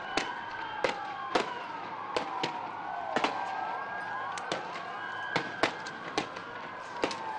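Several police vehicle sirens wailing together, overlapping and gliding up and down in pitch. About a dozen sharp bangs go off at irregular intervals through them.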